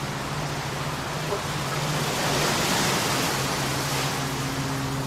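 A video soundtrack playing: a steady rushing noise over a low hum, swelling slightly about two and a half seconds in.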